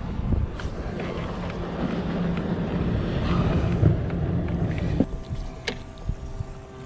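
Wind rumbling on the microphone out on an open boat, dropping off suddenly about five seconds in. A couple of sharp knocks follow as the fishing rod is set into its holder on the gunwale.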